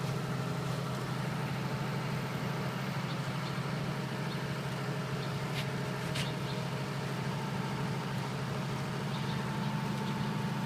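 A 50 kVA super-silent canopied diesel generator set running steadily, a low, even engine hum with a few faint steady tones above it.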